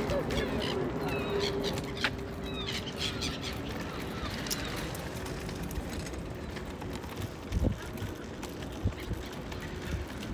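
Pet stroller's wheels rolling over paving slabs, with birds calling during the first few seconds and a couple of knocks from the stroller further on.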